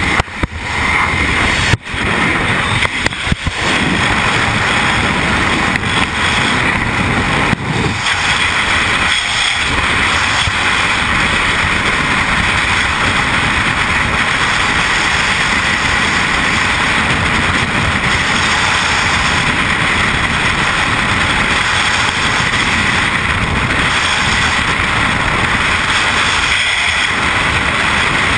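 Freefall wind rushing over a skydiver's camera microphone: a loud, even rush, choppy with short drop-outs for the first few seconds, then steady.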